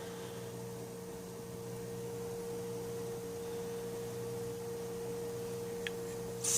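Steady electrical hum: one constant mid-pitched tone over weaker lower hum lines, with a faint click near the end.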